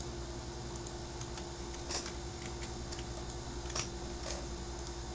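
A few scattered computer keyboard and mouse clicks over a steady electrical hum.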